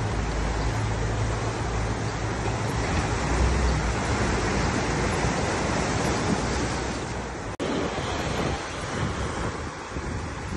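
Ocean surf breaking and washing up a rocky sand beach, with wind rumbling on the microphone. About seven and a half seconds in the sound drops out for an instant and a second surf recording begins.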